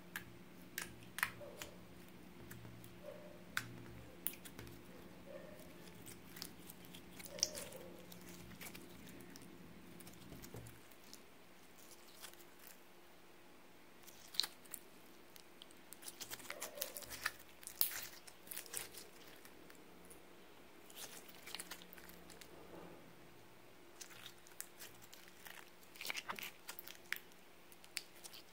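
Clear glitter slime being poked, pressed and stretched by hand: scattered soft sticky clicks, pops and squelches as fingers pull away and the slime stretches.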